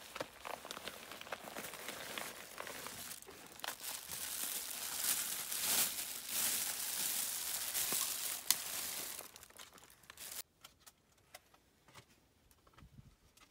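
Thin white plastic bag crinkling and rustling as hands open and handle it, with the soft cooler pack's fabric rustling too. The crinkling stops about ten seconds in, leaving only faint small clicks.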